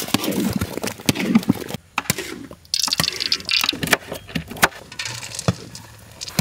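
Steel cleaver chopping almonds on a cutting board: a run of irregular sharp knocks of the blade striking the board, after a short pause about two seconds in.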